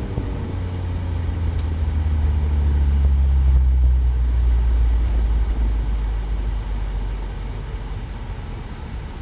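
Mazda MX-5's four-cylinder engine running at low revs as the car slows to a crawl, heard from inside the open cockpit as a low, steady rumble. It swells about three seconds in, then gradually eases off.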